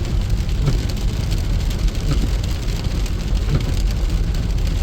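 Heavy rain falling, a dense patter of drops over a steady low rumble.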